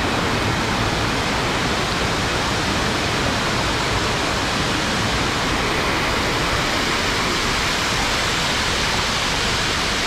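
Water rushing steadily over shallow rock cascades close to the microphone: an even, unbroken hiss.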